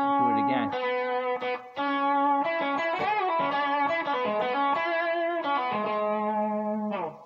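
Les Paul-style electric guitar playing a slow blues lick in ninth position: a slide up the D string to the 11th fret, then held notes with bends and vibrato, ending with a slide down the neck.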